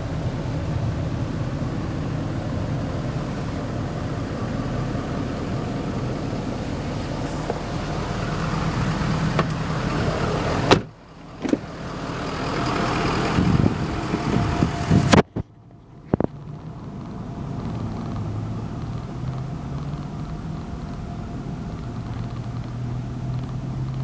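A 6.7-litre Power Stroke V8 turbo-diesel idling steadily, with two sharp thumps about eleven and fifteen seconds in.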